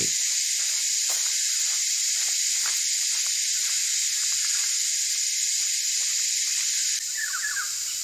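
Dense chorus of cicadas singing, a steady high-pitched shrill that does not let up. Near the end it drops a little, and a sacred kingfisher's short repeated cackling notes come in over it.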